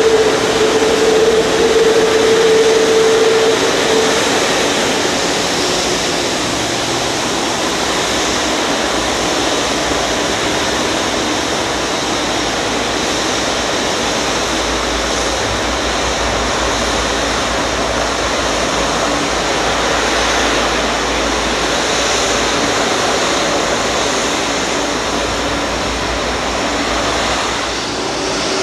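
Rolls-Royce Trent jet engines of a Boeing 777-200ER taxiing past at idle thrust: a steady roar, with a high whine that fades after about four seconds as the aircraft moves away.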